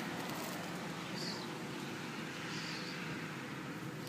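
Steady background hum of distant traffic, with two faint short rustles about a second and two and a half seconds in.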